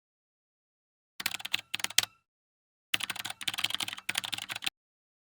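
Rapid clicking like typing on a computer keyboard, in two bursts: the first lasts about a second, starting about a second in, and the second lasts nearly two seconds, starting about three seconds in.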